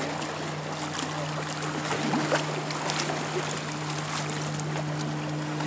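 Motorboat engine running with a steady low hum over a wash of water noise.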